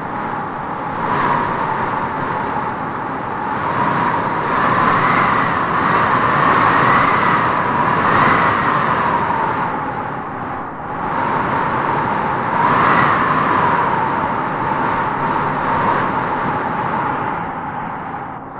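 Wind howling in gusts: a steady rush with a whistling howl that swells and rises in pitch, once for several seconds beginning about four seconds in and again briefly around thirteen seconds, then falls back.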